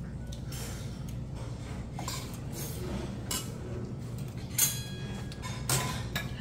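A metal spoon clinking and scraping against a stainless steel bowl, several separate clinks over the few seconds. One louder clink about two-thirds through rings briefly like struck metal.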